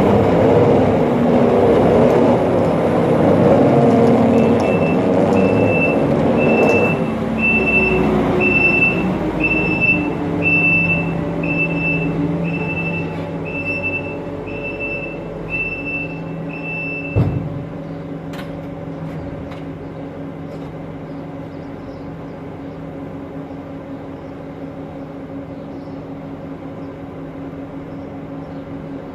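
Farm machine engine running a sawdust side-shooter bedding spreader, with a loud rushing throw for the first several seconds. A backup alarm beeps about once a second through the first half. A single knock follows, then the engine runs on more quietly and evenly.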